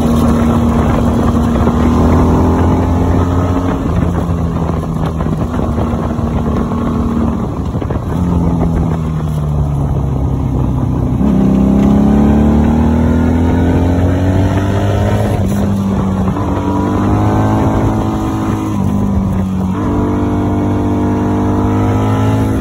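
Honda Magna VF750C's V4 engine pulling the bike along, its pitch rising and falling with the throttle. A couple of times it drops sharply and then climbs again.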